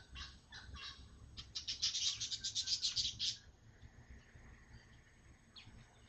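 Small songbird calling: a few short, high chirps, then a loud rapid trill of sharp repeated notes, about eight a second, lasting roughly two seconds.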